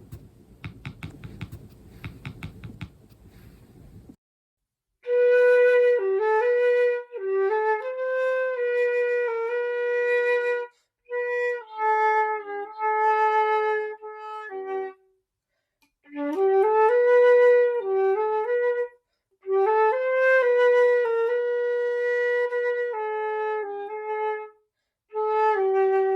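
A flute plays a slow melody in several phrases with short pauses between them. For the first four seconds, before the flute enters, there is a low rustling noise with faint clicks.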